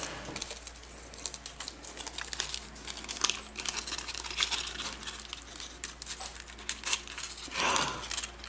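Aluminium foil crinkling and crackling as it is unwrapped by hand from a baked potato: a run of quick, irregular crackles, with a louder crumple near the end.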